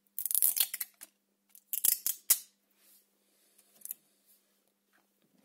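Thin plastic seal being peeled and torn off a smartphone battery, crinkling in two loud bursts about a second and a half apart, with a fainter rustle near the end.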